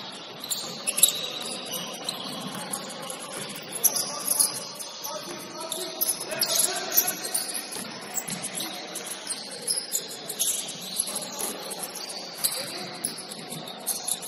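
Basketball shoes squeaking on a hardwood gym floor during play: many short, high-pitched squeaks coming irregularly.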